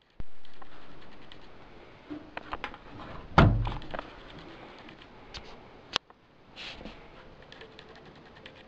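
Scattered clicks and knocks of objects being handled, with one loud heavy thump about three and a half seconds in and a sharp click about six seconds in.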